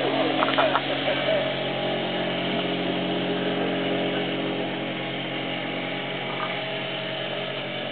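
Mercury 5 hp outboard motor running at speed, pushing a small inflatable boat: a steady buzzing drone that grows gradually fainter as the boat moves away.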